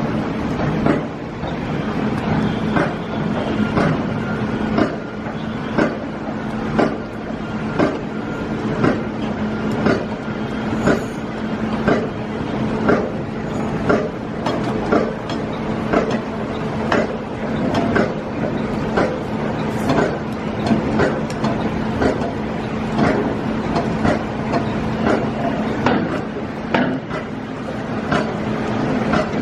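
Construction site noise in heavy rain: a steady machine hum under a wash of noise, with frequent sharp knocks and clanks about once a second.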